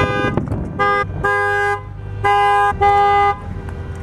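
A car horn honking in a string of short blasts, about five in four seconds: two notes sounding together, each blast cut off sharply.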